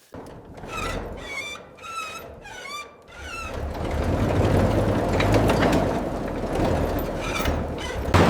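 A few short high squeaks, then from about three seconds in a motor vehicle engine running steadily with a low hum, growing louder.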